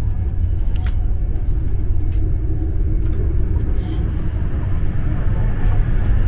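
Steady low rumble of a passenger train running at speed, heard from inside the coach, with a few faint clicks.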